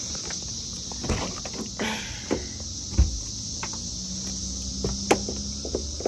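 Cicada chorus, a steady high-pitched drone, with a few sharp knocks and thumps over it, the deepest about three seconds in.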